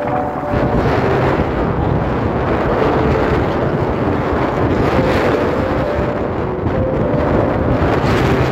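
Wind blowing hard across the microphone: a steady rushing and buffeting noise.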